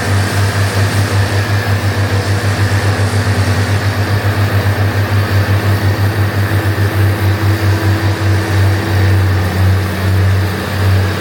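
Heavy diesel engine of harvest machinery running under load: a loud, low hum that throbs rapidly and evenly, with a faint steady whine above it.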